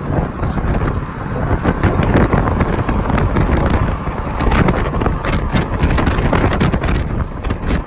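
Strong wind buffeting the microphone: a loud, rough rumble with crackling gusts throughout.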